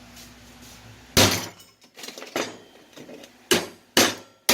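Hammer blows on steel flat stock held in a vise, bending it cold: about five sharp metallic strikes with short ringing, the first about a second in and three in quick succession near the end.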